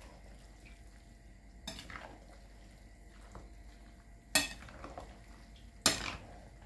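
A wooden spatula and a metal spoon stir wet chopped ceviche in a glass bowl. There is a light knock near two seconds in, then two sharp clinks of metal on the bowl at about four and a half and six seconds.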